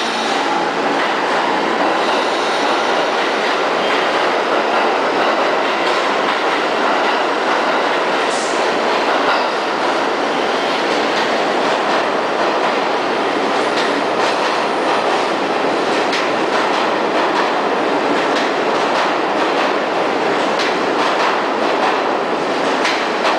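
New York City subway train running through an underground station: a steady, loud rumble of steel wheels on rail. Clicks of the wheels over rail joints come thick and fast in the last several seconds.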